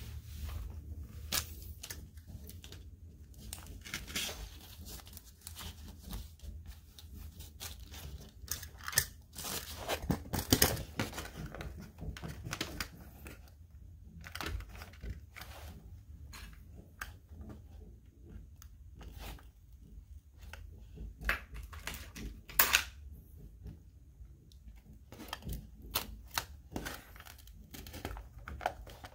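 Crinkling and tearing of a cardboard packaging insert and clear tape as hands pull free the string ties holding a toy set. It is an irregular string of crackles, scrapes and clicks, with a few louder crackles partway through.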